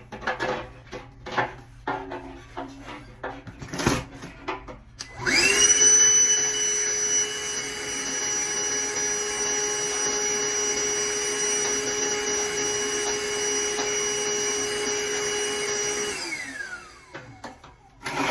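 A vacuum cleaner, likely a wet/dry shop vac, starts about five seconds in, runs steadily with a whine for about ten seconds while sucking water from under the furnace blower, then winds down with falling pitch. Before it starts there are scattered clicks and knocks of handling.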